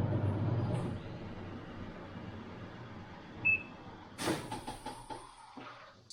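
Washing machine: a low hum that fades about a second in, a single short beep from the control panel about three and a half seconds in, then a sharp knock and a brief rattle.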